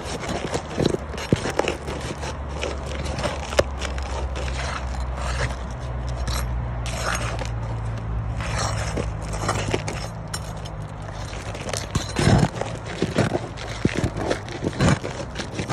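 Irregular scraping and crunching with short knocks, like someone moving about on a rough surface, over a steady low hum.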